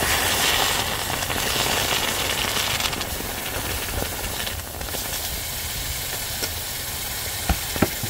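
Hot plaster investment mold with a freshly poured bronze casting being quenched in a tray of water, hissing and sizzling as the water boils against it. It is loudest in the first couple of seconds, then settles to a steady hiss, with two light clicks near the end.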